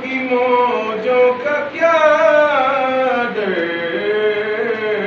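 A man's solo voice reciting a naat, with no instruments, in long held melodic notes that glide up and down. The phrase climbs about two seconds in and sinks again a little past the middle.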